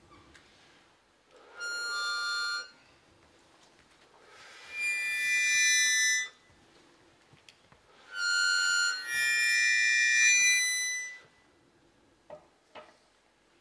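Harmonica played in four held chords of one to two seconds each, separated by short pauses, the last two nearly running together.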